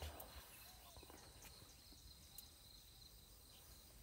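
Near silence: faint forest ambience with a steady high-pitched insect drone and a few faint ticks.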